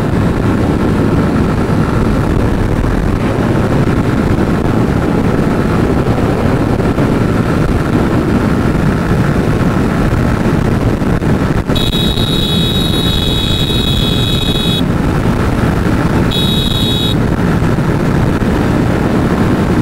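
Motorcycle riding at speed: steady wind and engine rush on the rider's microphone. About halfway through, the bike's electric horn sounds for about three seconds, then once more briefly a few seconds later.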